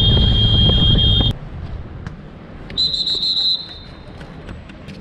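Two shrill blasts of a hand whistle. The first is long and sounds over the rumble and wind of a Honda VFR1200F motorcycle on the move, and both stop abruptly about a second in. A shorter, higher blast follows about three seconds in.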